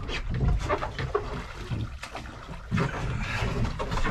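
Water splashing and sloshing at the side of a boat as a tope shark is let go back into the sea over the gunwale, in irregular bursts over a low rumble.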